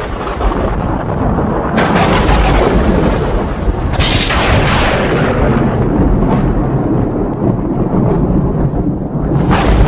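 Thunderstorm: thunder rumbling deep and continuous, with sharp crackling peals about two, four and nine and a half seconds in, over steady rain.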